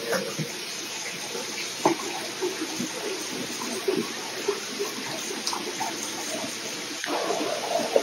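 Water running and trickling into fish-culture vats, a steady noise that grows a little louder near the end, with light footsteps on a cinder-block walkway.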